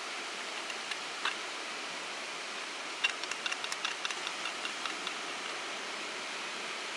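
Small fire of thin sticks crackling, with a quick run of pops about three seconds in, over a steady hiss.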